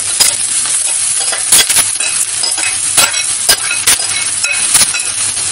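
Onions and spices sizzling in oil in a stainless steel kadhai as boiled, crumbled potatoes are added and stirred in, with several sharp metal clinks and scrapes against the pan.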